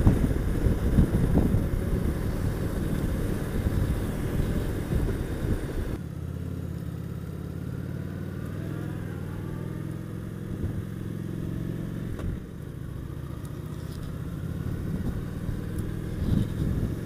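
Honda VT750S motorcycle's V-twin engine running under way, with heavy wind rush on the helmet-mounted microphone. About six seconds in the wind noise drops away abruptly, leaving the engine's steady low running.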